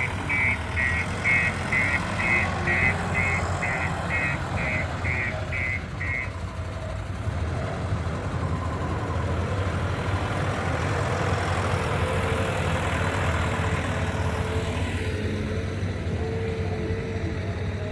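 JCB 3DX Plus backhoe loader's diesel engine running under work, with a repeated high beeping, about two beeps a second, from its reversing alarm that stops about six seconds in. The engine then runs on alone, with a faint steady whine near the end.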